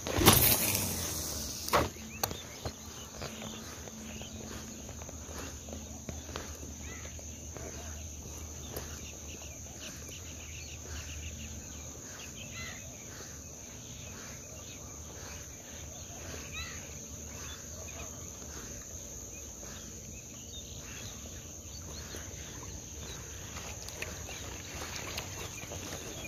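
Steady high-pitched insect chirring in an open field, with faint scattered ticks. Two sharp sounds come near the start, about a second and a half apart, and the first is the loudest thing heard.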